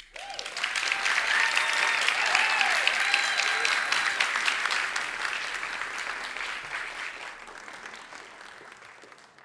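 Audience applauding, breaking out suddenly, at its fullest after a couple of seconds and then slowly dying away.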